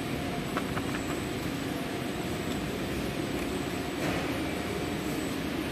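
Steady hum of factory machinery running, with a few faint clicks early on.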